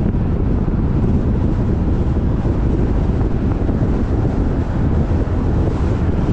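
Car driving, a steady low rumble of road and wind noise with wind buffeting the microphone.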